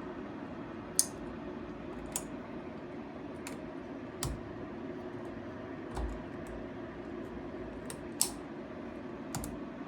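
Scattered sharp metal clicks and taps, one every second or two, as a lock ring is threaded and tightened over the sprocket on a bicycle rear hub, over a steady low hum.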